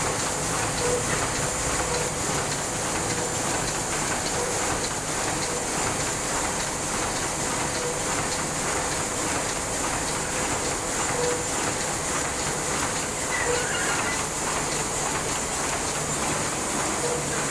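Heidelberg Speedmaster SM52 sheet-fed offset press running at a steady pace: a fast, even mechanical clatter over a constant hiss.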